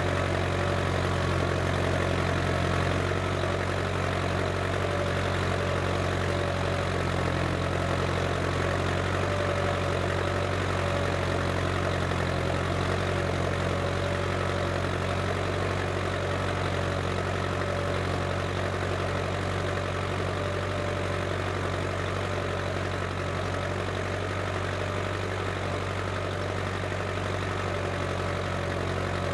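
Case International 885XL tractor's diesel engine running steadily while pulling a plough, a constant engine drone with a thin steady whine above it.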